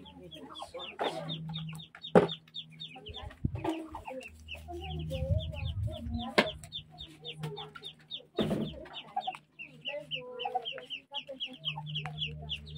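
Domestic chickens clucking over a quick run of high peeping notes, several a second, with a few short knocks.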